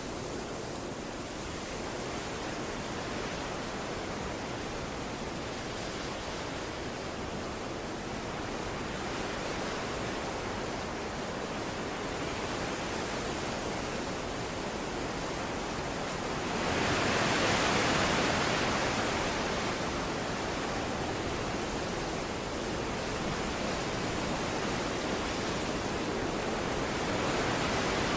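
Steady rushing water, an even wash of noise that swells louder for a few seconds about two-thirds of the way through and again near the end.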